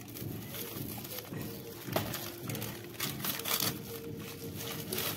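Plastic packaging crinkling and rustling as it is handled, with several short crackles.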